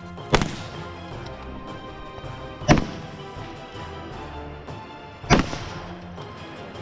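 Three rifle shots, each a sharp crack with a short ringing tail, spaced about two and a half seconds apart, over background music.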